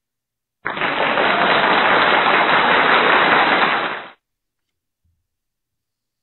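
A recorded sound effect played from the presentation slide: about three and a half seconds of dense, crackling noise with no high end, starting abruptly and fading out.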